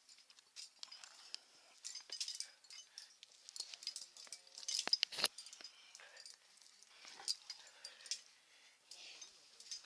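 Climbing gear on a harness clinking and jangling, carabiners and quickdraws knocking together as the climber moves up the rock, in many short irregular clicks and scrapes, the loudest about five seconds in.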